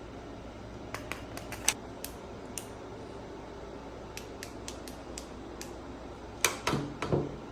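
About a dozen sharp, irregularly spaced clicks, with a few louder knocks near the end, over a steady low hum.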